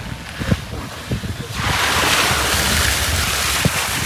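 Sea surf: a wave washes in as a broad hiss that swells about a second and a half in and lasts some two seconds. Wind buffets the microphone throughout with low rumble and a few thumps.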